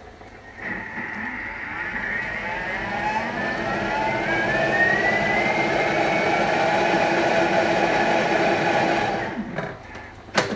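Thermomix food processor blending apple purée at raised speed: the motor whine rises in pitch over the first few seconds, runs steadily, then stops about nine seconds in. A sharp click follows near the end.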